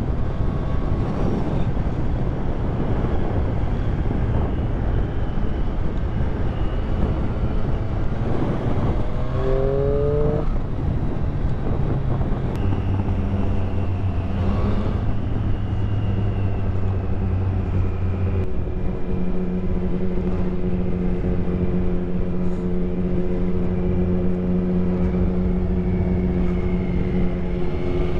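Triumph Street Triple's inline three-cylinder engine running on the road under heavy wind rush on the microphone. About a third of the way in the engine note rises briefly, then holds steady at cruising revs.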